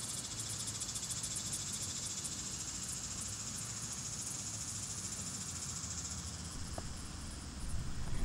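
A steady chorus of insects buzzing high, with a faint fast pulsing on top, over a low wind rumble that swells near the end.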